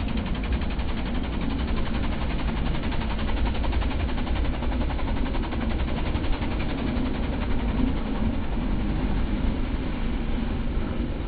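ATV engine running at a steady, even throttle as the quad is driven in tight circles on snow.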